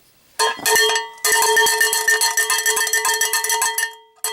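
Cowbell struck rapidly, several ringing metallic hits a second. The hits start about half a second in and stop briefly twice, near one second and near the end.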